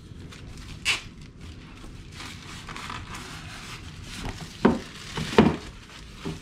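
Monitor unboxing: plastic wrap rustling and polystyrene foam packing being handled, with a sharp crackle about a second in and two louder thumps about three-quarters of the way through.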